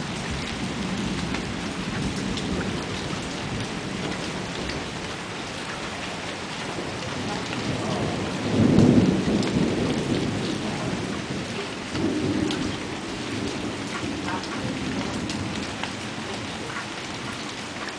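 Steady thunderstorm rain with thunder: a loud thunderclap about halfway through, right after a lightning flash, rumbling away over a few seconds, then a smaller rumble a few seconds later.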